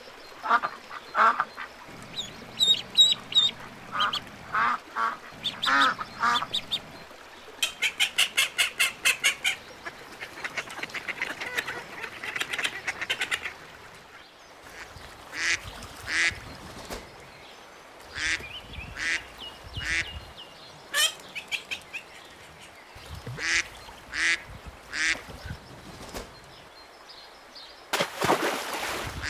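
Ducks quacking, many separate calls of varying pitch, with a fast run of about a dozen quacks in quick succession about eight seconds in.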